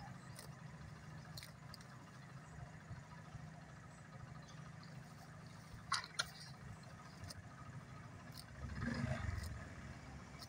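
Cow cropping grass: sharp tearing clicks scattered through, the loudest a pair about six seconds in, over a faint steady engine hum. A louder low rumble swells for about a second near the end.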